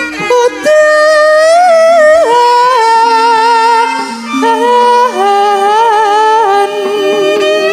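Male sinden singing a Javanese song in a high voice, the range of a female singer, with long held notes and vibrato that step down in pitch about two and five seconds in. Steady lower instrumental notes accompany the voice.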